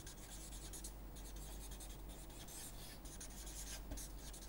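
Felt-tip marker writing on paper: faint scratchy strokes that come and go as each letter is drawn, over a steady low hum.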